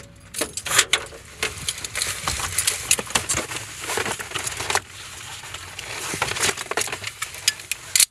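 Handling noise of objects being rummaged and moved: dense rustling with many sharp clicks and knocks, busiest in the first five seconds and sparser after, with a sharp knock near the start and another at the end.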